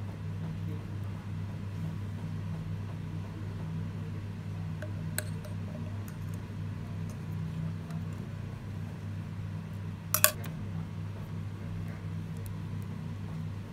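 Small metal clicks as a sewing machine needle clamp is handled with fingers and long-nosed pliers: a faint one about five seconds in and a sharper double click about ten seconds in. A steady low hum runs underneath.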